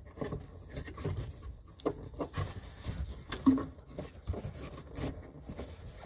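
Plastic tail-light bulb socket and its wiring on a 2007 Toyota Corolla handled with gloved hands: irregular small plastic clicks, rustles and scrapes as the socket is worked loose and pulled out past the wires. One sharper click about three and a half seconds in.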